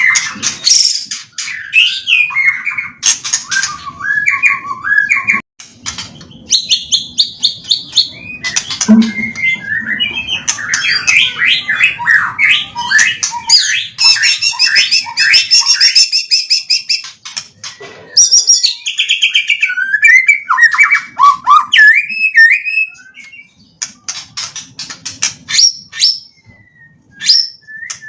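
White-rumped shama singing a loud, varied song of whistled phrases, fast trills and sharp clicking notes, its repertoire filled out with phrases learned from other birds, with short pauses near the end.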